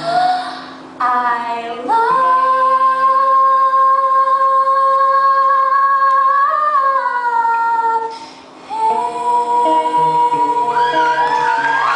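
A young woman's high-pitched voice sings long held notes with acoustic guitar accompaniment. One note is held for about five seconds, rises slightly and then falls away. After a short breath a second high note is held near the end.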